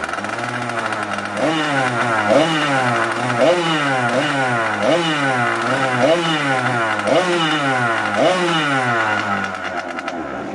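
Jetsurf GP100's small two-stroke engine running on its stand, blipped with the throttle about once a second so that its pitch jumps up and sags back, then idling briefly before it is shut off at the end. The engine runs again after water was pumped out of its flooded cylinder.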